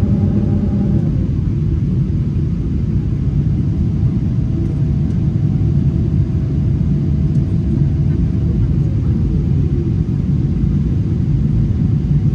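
Cabin noise inside a Boeing 777-300ER on descent: the steady, loud low rumble of airflow and its GE90-115B engines. A faint whine holds steady for a few seconds and then slides down in pitch about nine seconds in.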